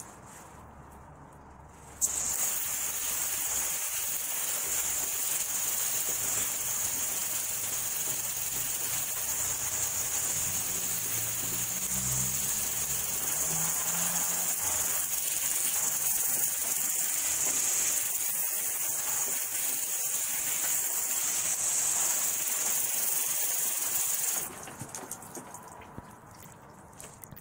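Water spraying from a garden hose onto a stack of tires, a steady hiss that starts abruptly about two seconds in and cuts off a few seconds before the end.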